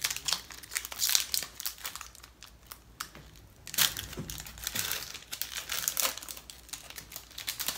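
Foil Pokémon TCG booster pack wrapper crinkling and crackling as it is torn open by hand, with sharper cracks about a second in and near four seconds.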